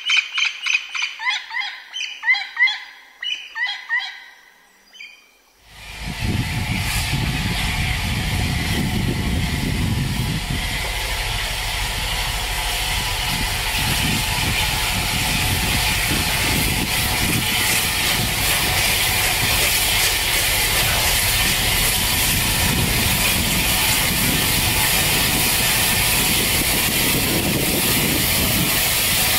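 Repeated short chirping calls for the first few seconds. Then, after a sudden jump in level, a steam locomotive hauling a train comes along the line: a steady hiss of steam over a low rumble.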